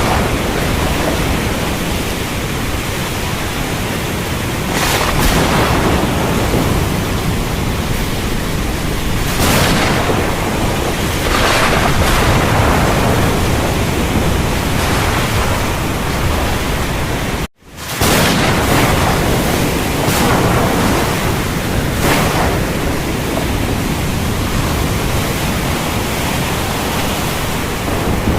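Heavy, steady rain with a deep continuous rumble of thunder, swelling in brief surges every few seconds. The sound cuts out for a split second about two-thirds of the way through, then resumes.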